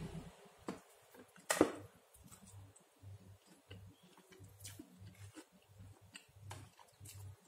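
Close-up chewing of a napa cabbage pancake, a steady rhythm of about two chews a second with small wet mouth clicks. A sharper click about one and a half seconds in is the loudest sound.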